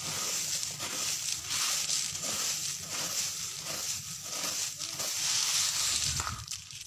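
Piled hailstones crunching and scraping as a hand digs and stirs through them: an irregular, grainy rustle of ice pellets that fades out near the end.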